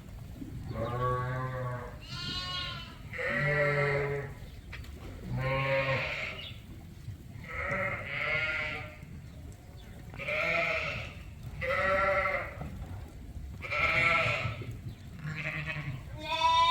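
Sheep bleating, about ten calls in quick succession. Each call is under a second long and has a wavering pitch.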